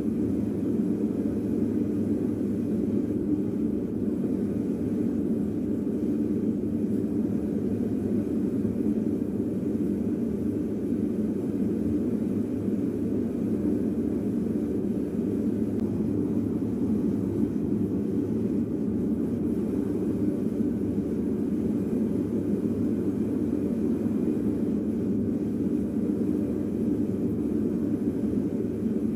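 Metal-melting furnace burner running with a steady, even rumble, heating a crucible of copper pipe pieces until they melt for bronze casting.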